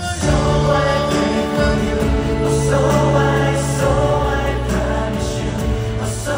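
Live pop ballad: sung vocals with a choir-like blend of several voices over a band's accompaniment and sustained bass notes.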